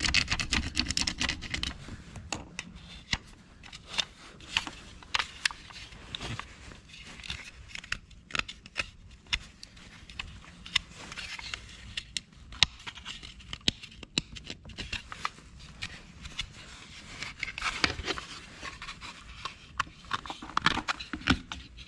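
Hard plastic switch panel being handled by hand: scattered light clicks, taps and scrapes of plastic on plastic, busier for a moment near the end.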